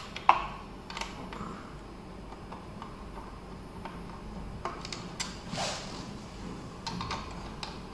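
Hex key and screwdriver working the seat-mount screws of an electric scooter: scattered sharp metallic clicks, the loudest just after the start, and a short scrape about five and a half seconds in.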